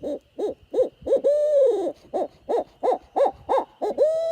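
Hand-held owl hooter call blown in the barred owl's eight-note hoot. It gives a rhythmic run of short hoots, about three a second, broken by two long notes that rise, hold and bend down, the second one starting near the end.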